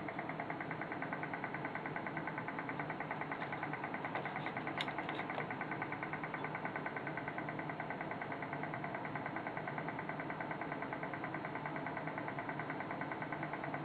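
Steady electrical buzz with a fast, even pulse, from a powered-up homebrew shortwave transceiver and its bench power supply. A few faint clicks come about five seconds in.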